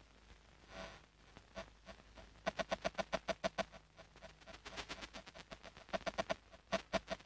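Electromechanical telephone-exchange switching gear clicking: quiet at first, then about two and a half seconds in a rapid regular run of clicks, about eight a second, going on in irregular bursts with another fast run near the end.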